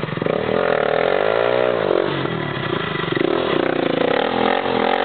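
Sport quad (ATV) engine revving hard under load while bogged down in deep mud. The pitch swells up and falls back twice as the rider works the throttle to pull free.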